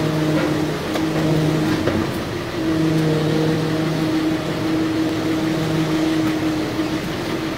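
An engine running with a steady hum that fades in and out every second or two, over a constant rushing noise.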